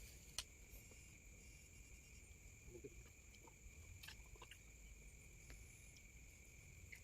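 Faint, steady high-pitched trilling of night insects such as crickets, with a few soft clicks, the sharpest about half a second in.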